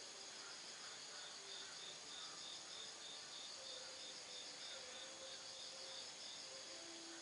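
Faint, steady high-pitched chirring of insects, pulsing about five times a second.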